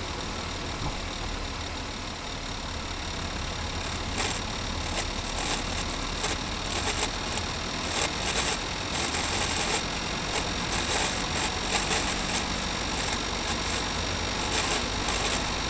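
Audi A3 gearbox turning with the engine running: a steady low hum with irregular metallic clicking and rattling from about four seconds in. This is the unusual gearbox noise whose cause the owner does not know.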